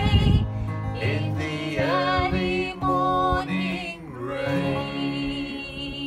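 Acoustic guitar and voice closing a song: a strummed chord at the start rings on under a few sung notes that slide up and down in pitch, and the sound fades near the end.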